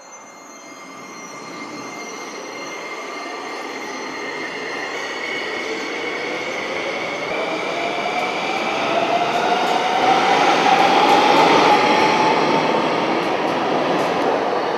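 Subway train gathering speed: its running noise grows steadily louder while a whine climbs in pitch.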